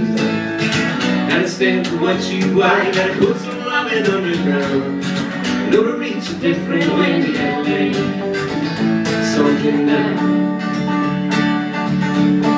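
Live acoustic guitar strumming, with an electric guitar playing along.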